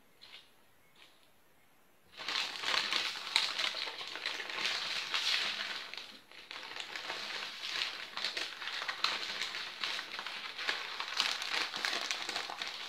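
Baking paper crinkling and rustling as a filled crepe is rolled up inside it by hand, starting about two seconds in after a near-silent moment, with a brief lull near the middle.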